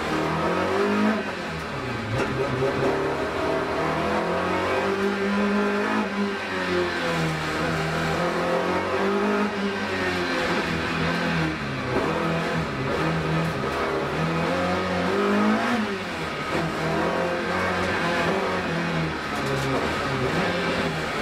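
BMW M3 2.5 Group A race car's four-cylinder engine at full race revs, heard from inside the cockpit. The pitch climbs and drops again several times as it pulls through the gears and slows for bends.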